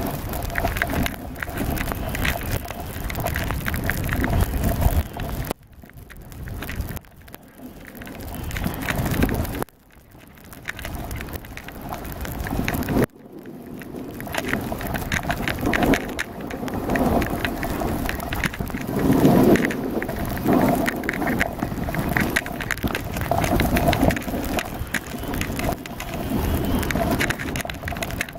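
Sliding down a snowy ski run at speed: snow hissing and scraping underneath, with wind rumbling on the microphone. It dips briefly quieter a few times, around 6, 10 and 13 seconds in.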